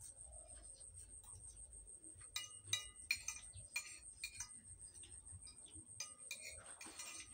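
Metal spoon clinking and scraping against a plate during a meal: a run of light, ringing clinks about two to four and a half seconds in, and a few more near six seconds.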